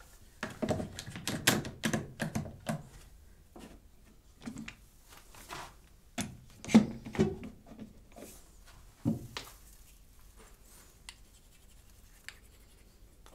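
Wood strips knocking on a wooden workbench and a one-handed bar clamp being tightened: a run of clicks and knocks, the loudest about seven seconds in, then a few faint clicks near the end as a router plane is handled.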